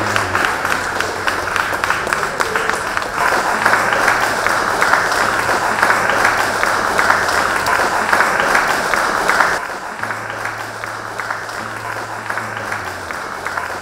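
Audience applauding over background music with a steady bass line; the applause drops off abruptly about ten seconds in, leaving the music and fainter clapping.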